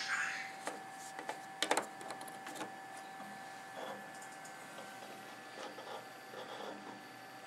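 USB flash drive being pushed into a desktop computer's front USB port: a few sharp plastic-and-metal clicks and scrapes in the first couple of seconds, loudest near the middle of them, followed by fainter handling rustles. A steady faint whine runs underneath.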